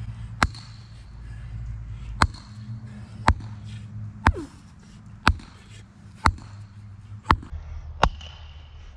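Sledgehammer striking the top of a wooden stake, driving it into the ground: eight sharp blows about a second apart, each swing looping around the body before it lands.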